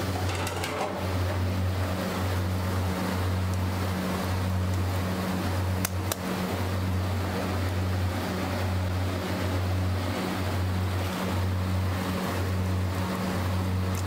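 Steady commercial-kitchen noise at a griddle station: a rushing roar with a low hum that drops out and returns every second or so, and a sharp clack of a metal spatula on the iron griddle about six seconds in.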